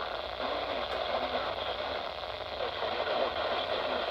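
Weather radio broadcast with steady static hiss over the channel, the announcer's voice faint and barely audible beneath it.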